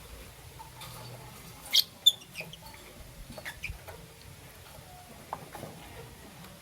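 Young peach-faced lovebird chirping: two sharp, loud chirps close together about two seconds in, followed by softer, scattered chirps and clicks.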